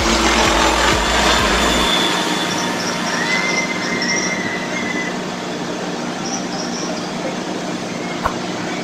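Traffic noise of a motorcade of SUVs and police pickups driving past, a steady rushing hiss with a low rumble that drops away about two seconds in. A thin high steady tone sounds for about two seconds midway.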